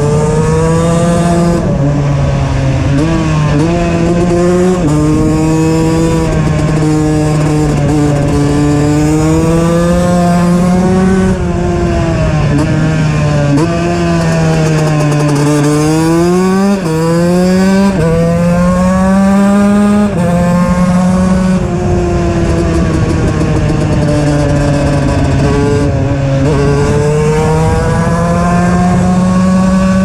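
KTM EXC 125's single-cylinder two-stroke engine, fitted with an HGS exhaust, running under throttle from the rider's seat. Its pitch swings up and down with the throttle, with several sudden steps in pitch.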